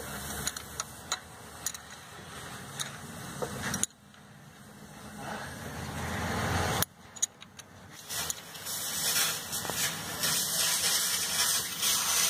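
Light clicks and taps of fingers and a spanner working the timing-belt tensioner on the engine, over a steady background hiss. The hiss drops away abruptly twice and grows louder in the second half.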